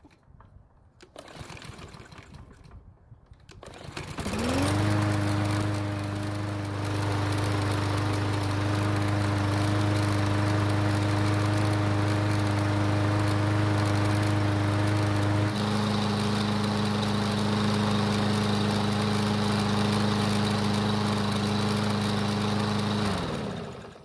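Troy-Bilt walk-behind lawn mower's small gasoline engine pull-started after storage: it catches about four seconds in, revs up quickly and runs steadily, then winds down and stops near the end. It runs with a rattle from the top of the engine, which the owner takes for the recoil starter and not an engine knock.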